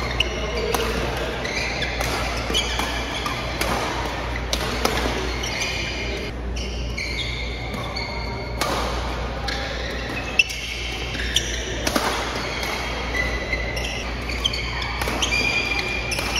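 Badminton doubles rally: sharp racket strikes on the shuttlecock, each a second or two apart, the loudest about ten seconds in. Between them, court shoes squeak on the mat. It all echoes in a large hall.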